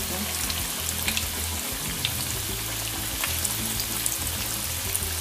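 Battered potato pakoras deep-frying in hot oil in a frying pan: a steady sizzle scattered with small crackles and pops.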